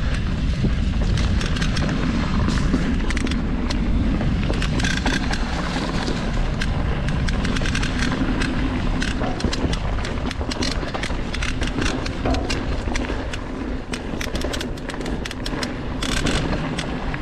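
Mountain bike descending a dirt trail at race pace: wind rushing over the on-board microphone, tyres rolling on dirt, and the bike clattering with many sharp clicks over bumps.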